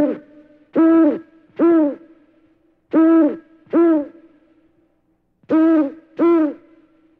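Owl hooting in pairs of short hoots, each note arching up and then down in pitch; a lone hoot at the start, then three pairs about two seconds apart.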